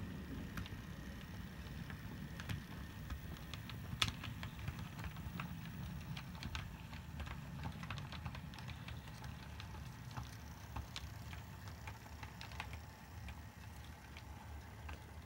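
Model train running slowly along the track: a steady low motor hum with many small, irregular wheel clicks over rail joints and pointwork, one sharper click about four seconds in.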